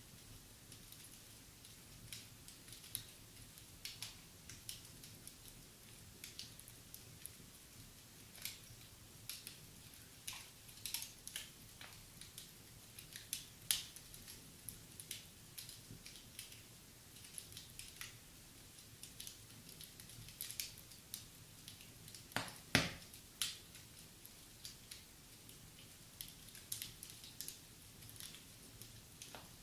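Wood fire crackling in a fireplace: irregular small snaps and pops, with one louder pop about three quarters of the way through.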